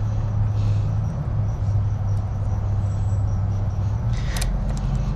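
A steady low hum runs throughout. About four and a half seconds in come a few small metallic clicks from a Lishi pick working the pins of a Kwikset doorknob lock.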